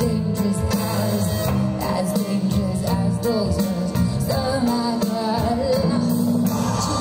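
Live band and orchestra playing a pop song together, with a woman singing the lead vocal over guitars, drums and strings.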